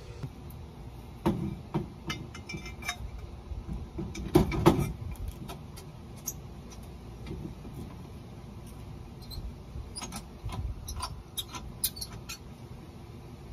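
Hand-fitting a crossbar to a hurricane shutter: scattered clicks, scrapes and knocks as the bar is held against the panel and a screw is turned by hand, with louder knocks about a second and four seconds in and light ticks near the end.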